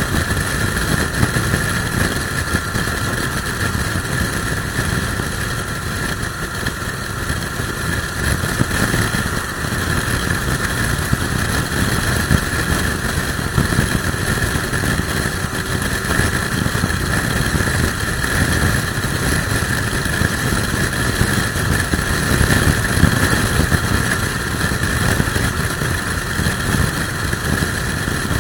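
Suzuki motorcycle cruising at a steady highway speed, its engine drone mixed with heavy wind buffeting on the microphone from a strong crosswind.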